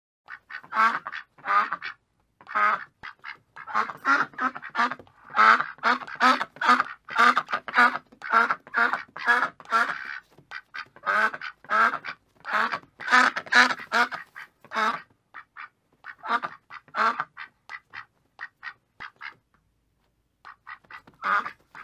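Duck quacking: a long series of short, rapid quacks in quick runs. It pauses for about a second near the end, then starts again.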